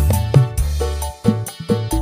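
Dangdut kendang hand drums struck in a quick, even rhythm over an instrumental dangdut backing track with a steady bass line and held keyboard notes.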